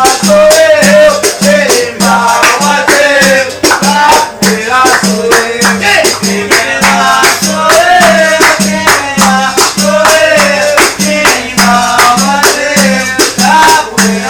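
A capoeira song: a voice singing over a rattle-like shaker, with a steady repeating low note keeping the beat.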